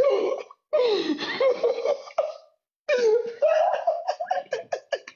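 A man laughing hard in long breathless bursts, breaking into quick short pulses of laughter near the end.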